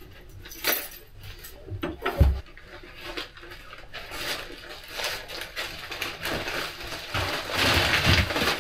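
Clicks and knocks with a heavy thump about two seconds in, then rustling of shopping bags and footsteps growing louder toward the end as loaded grocery bags are carried in through a front door.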